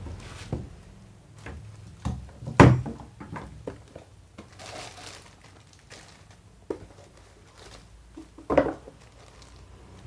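A cardboard box and its packing being opened and handled: scattered knocks and thuds, with the loudest about two and a half seconds in and another near the end, and a brief rustle in between.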